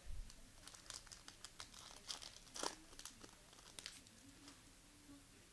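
A foil trading-card pack being torn open, its wrapper crinkling in a run of crackles for about four seconds, loudest about two and a half seconds in.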